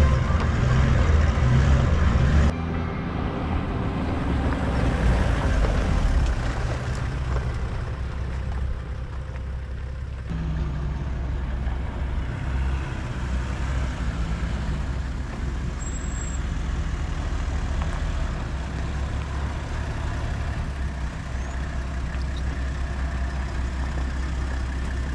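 Four-wheel-drive vehicles running on a dirt track, a steady low engine drone that changes abruptly about two and a half seconds in and again about ten seconds in.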